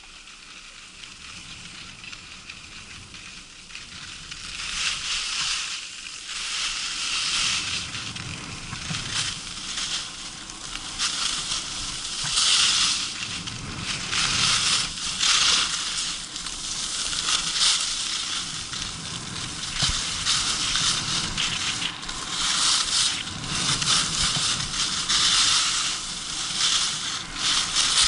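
Skis scraping and hissing over hard-packed, icy snow during a descent. The sound is quieter for the first few seconds, then swells and fades in surges every second or two.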